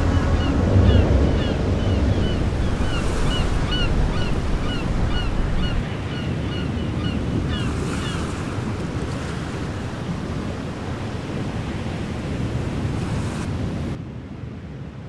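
Ocean surf washing in with wind, over which short high bird calls repeat a few times a second for the first half. The sound drops away sharply near the end.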